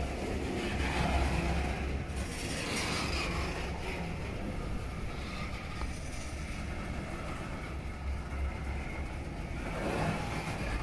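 Covered hopper cars of a freight train rolling past close by, a steady low rumble of steel wheels on the rails.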